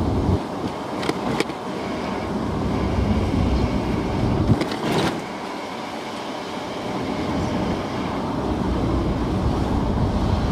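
Car driving slowly, its engine and road noise heard from inside the cabin, with a few sharp clicks or knocks about a second in and again around five seconds in.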